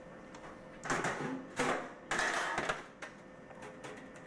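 Serving utensils scraping and clattering against stainless steel buffet pans, three short bursts in the first few seconds, over a faint steady hum.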